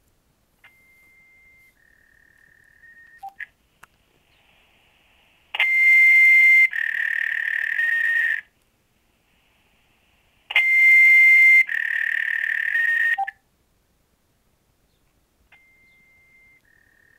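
Looping electronic tones from a pager voicemail message: a higher beep of about a second steps down to a slightly lower, hissier tone for under two seconds, and the pair repeats about every five seconds. Some repeats are faint and some loud.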